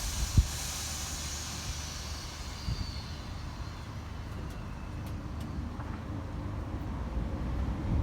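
Low, steady vehicle rumble, with a high hiss that fades away over the first few seconds and a short thump near the start.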